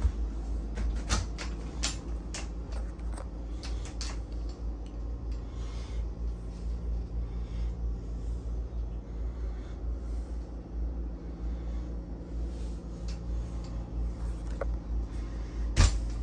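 Clicks and knocks of cupboard doors and fittings being handled in a small boat bathroom, over a steady low hum. Several light clicks come in the first few seconds and a sharper knock near the end.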